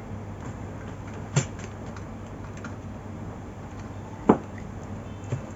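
Keys of a cheap gaming keyboard being pressed: two sharp clicks about three seconds apart and a few fainter taps, over a steady low hum.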